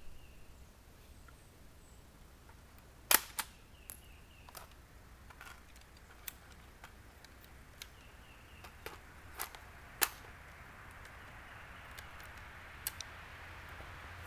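Sharp metallic clicks and knocks from working an AR-15 rifle that is failing to fire its steel-cased ammo, about nine spread over ten seconds. Two are much louder than the rest, about three and about ten seconds in. A hiss slowly rises near the end.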